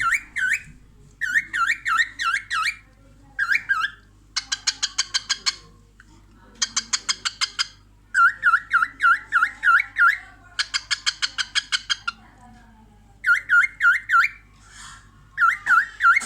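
Cockatiel calling in quick repeated bouts: runs of dipping chirps at about five a second alternating with faster buzzy chattering trills of about ten pulses a second, with short pauses between bouts.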